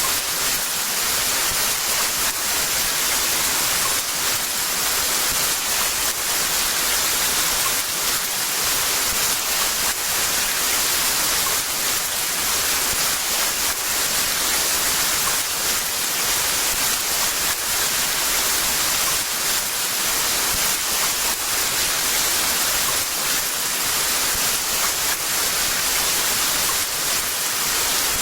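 Heavy rain pouring steadily, a dense, even hiss of countless drops with no thunder.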